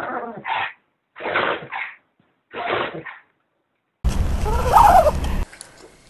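A black dog sneezing and snorting in three short bursts over the first three seconds. After a cut, a steady low hum with a brief rising-and-falling whine.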